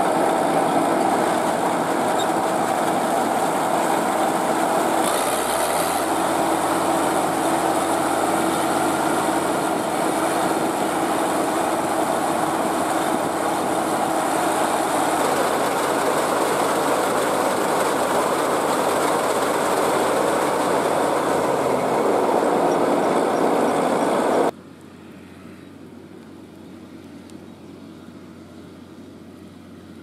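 CLAAS Crop Tiger 30 rice combine harvester running loud and steady while its unloading auger pours grain out, the engine note dipping slightly about five seconds in and rising again about 22 seconds in. The loud running cuts off abruptly about 24 seconds in, leaving only a faint hum.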